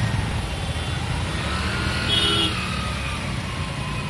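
Road traffic crossing a bridge: a steady low vehicle rumble, with a short beep a little past halfway and a slowly falling whine near the end.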